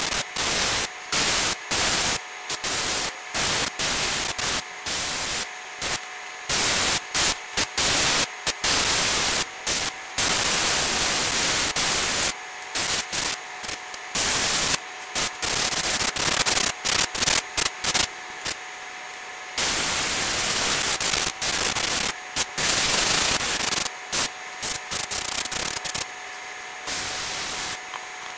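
Loud, harsh hissing noise that cuts in and out abruptly many times, with a faint steady tone beneath it.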